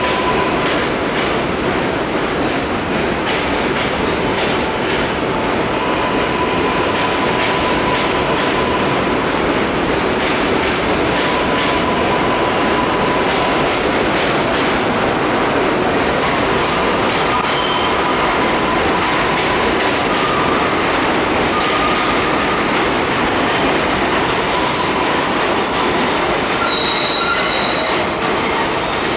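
New York City subway train running on the Flushing Line's elevated track: a steady, loud rumble of wheels on rail, with a thin wheel squeal that comes and goes and short higher squeals near the end.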